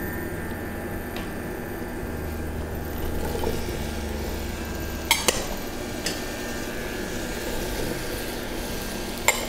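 Chopped paprika tipped from glass bowls into a stainless-steel pot, with two sharp clinks of glass or utensil against the pot, about five seconds in and near the end, over a steady low hum.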